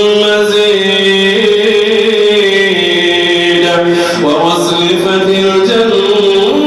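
A man reciting Quran in a melodic, chanted style, as an imam leading prayer, holding long drawn-out notes, with a pitch turn about four seconds in.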